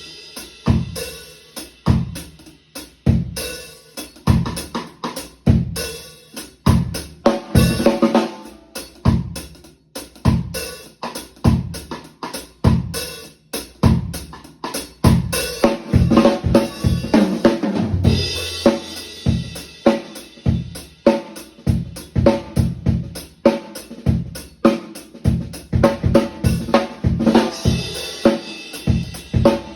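Acoustic drum kit played in a continuous groove and fills, heard as unmiked room sound: kick drum, snare and hi-hat throughout, with cymbal crashes ringing out now and then.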